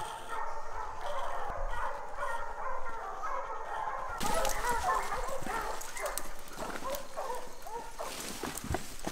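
Several bear hounds held on leads whining and yelping over one another without a break, worked up at the downed bear.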